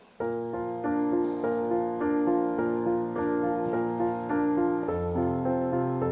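Background music, a classical-style instrumental piece, starting abruptly just after the start with quickly changing notes.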